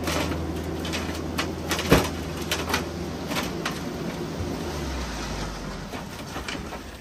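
Dump truck unloading soil: the engine hums steadily as the hydraulic tipper raises the bed, and the load slides out with a continuous rushing and many small clatters of clods and stones, with one sharp knock about two seconds in. The engine's low hum drops to a lower note about five seconds in.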